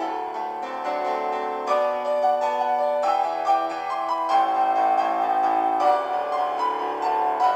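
Piano music, with notes and chords struck one after another.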